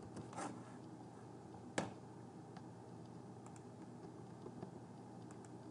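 Computer keyboard and mouse clicks: one sharp click about two seconds in, then a few faint ticks over a low steady room hiss.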